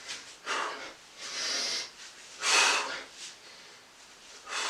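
A man breathing hard from exertion during exercise: a run of forceful, breathy exhalations about once a second, the strongest about two and a half seconds in.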